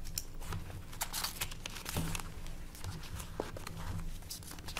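Paper rustling as document pages are turned and shuffled, a run of short rustles with a few small clicks.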